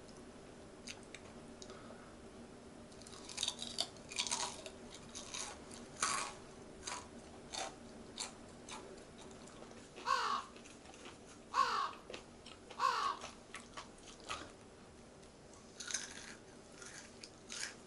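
Close-up crunchy chewing of crispy fried chicken: irregular crisp bites and crunches. Partway through come three short falling calls, about a second and a half apart.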